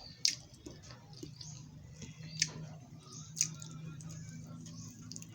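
Eating sounds from close up: wet chewing and squishing with three sharp clicks, and a low steady hum underneath in the second half.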